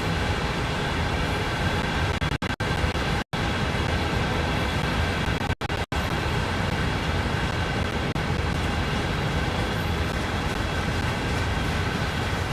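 CSX freight train making a steady, unbroken noise. The sound cuts out for an instant several times in the first half.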